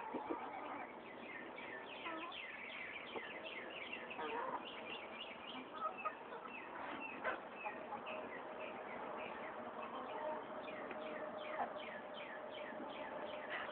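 Backyard laying hens clucking, with many quick, high, falling bird chirps repeating throughout.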